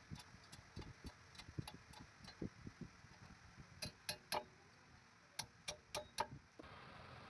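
Irregular light metallic clicks and clinks, like small metal parts or tools being handled, with a run of sharper, brighter clinks around four seconds in and again about a second later.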